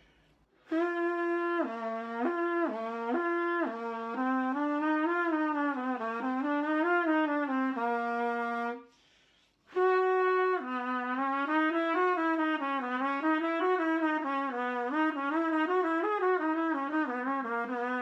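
Solo trumpet playing a tongued scale exercise on the 'hi' articulation syllable: a few notes stepping between two pitches, then quick runs up and down. It comes in two long phrases with a short breath pause about nine seconds in.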